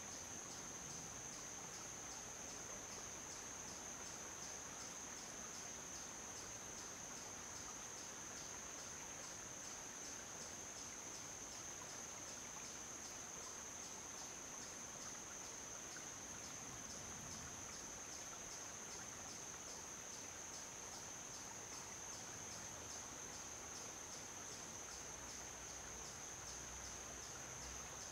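Insects singing in a steady high-pitched chorus with a quick, even pulse, unbroken throughout.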